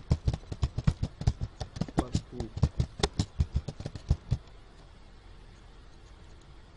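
Computer keyboard typing: a quick run of keystroke clicks that stops a little over four seconds in.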